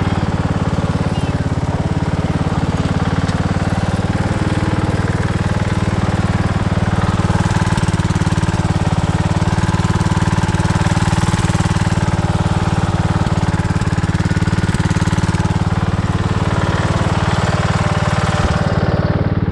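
Craftsman riding lawn mower's 17.5-horsepower engine running steadily and loudly at high speed, after a pulley swap.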